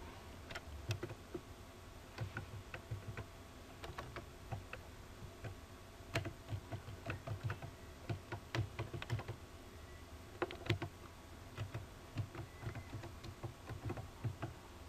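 Computer keyboard typing in quick, irregular runs of keystrokes with brief pauses between them.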